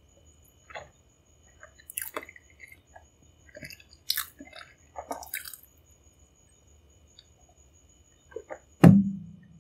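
Close-miked sounds of a man drinking milk from a glass: soft swallows and wet mouth clicks, then a louder low sound near the end as the glass comes down from his lips.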